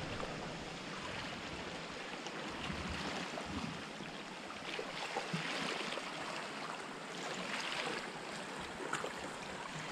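Small waves washing steadily against shoreline rocks, with a few faint splashes.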